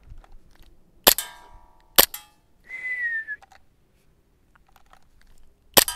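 WE Glock 19 gas blowback airsoft pistol firing three single shots, about one second in, two seconds in and near the end, each a sharp crack, the first and last with a brief metallic ring after. A short falling whistle is heard about three seconds in.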